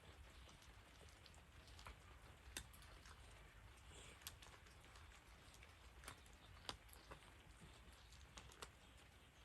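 Faint rain: scattered drops ticking at irregular intervals over a low steady hiss.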